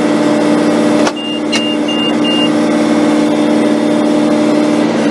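John Deere 6420 tractor's diesel engine running steadily under the cab, with a sharp click about a second in and a second click soon after. Four short, evenly spaced electronic beeps sound while the round bale is being finished and ejected.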